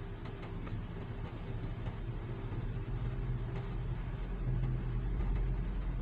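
A steady low mechanical hum, like a motor running, that swells slightly about four to five seconds in, with a few faint soft clicks.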